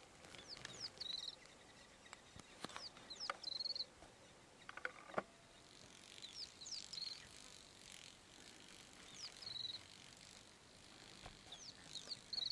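A small bird sings a short high phrase over and over, about every two and a half seconds: a few quick notes sweeping down into a brief buzzy trill. There is a sharp click about five seconds in.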